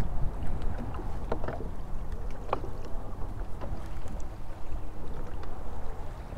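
Wind and water noise on an open fishing boat: a steady low rumble with scattered light clicks and taps.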